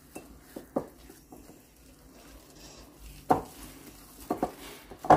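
A utensil knocking and clinking now and then against a mixing bowl as milk is stirred into cake batter. The strongest knocks come about three seconds in and right at the end.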